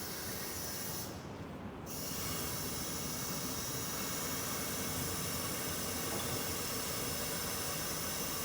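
Steady hiss of compressed air from the tire changer's pneumatic system as the pedal drives the lower bead-breaker separator up, breaking off briefly about a second in before resuming.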